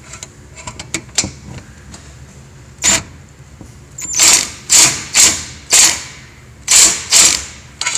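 Ryobi cordless impact driver run in about seven short trigger bursts, hammering a bolt tight: one burst about three seconds in, then six in quick succession over the next few seconds.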